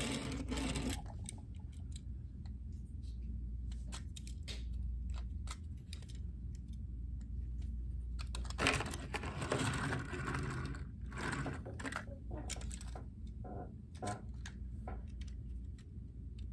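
A toy tractor-trailer and its cardboard box being handled: scattered small clicks and rustles, with a longer rustle of handling about halfway through, over a steady low hum.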